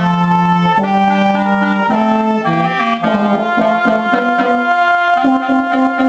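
Small family wind ensemble, with euphonium and oboe among the parts, playing a slow piece in several harmonised parts. The held notes change about once a second.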